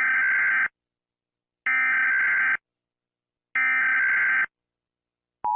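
Emergency Alert System SAME header: three identical bursts of digital data tones, each just under a second long and about a second apart. Near the end the steady two-tone EAS attention signal begins.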